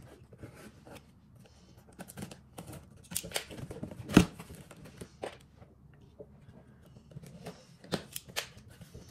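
Packing tape being picked and torn off a cardboard box and the box flaps pulled open: a run of irregular scraping and ripping noises, with one sharp crack about four seconds in.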